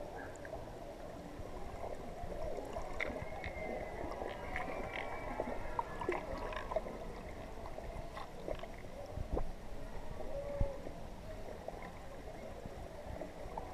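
Muffled water gurgling and sloshing heard through a camera submerged in a shallow ray pool, a steady wash with scattered small clicks and knocks.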